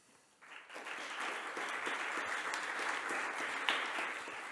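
Audience applauding. The clapping starts about half a second in and eases off slightly near the end.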